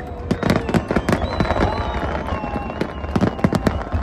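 Fireworks display: rapid, irregular bangs and crackles from many shells bursting at once, over a low rumble, with a thin whistling tone drawn out through the middle.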